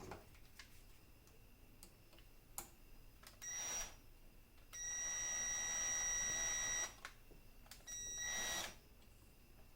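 A small electric power tool's motor whining at a steady high pitch in three runs: a short one, a longer one of about two seconds, then another short one.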